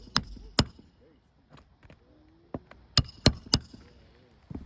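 Sharp metal hammer strikes on a roof snake tool driving roofing nails through asphalt shingles: two blows just after the start, then three quick blows about three seconds in, with faint scraping between.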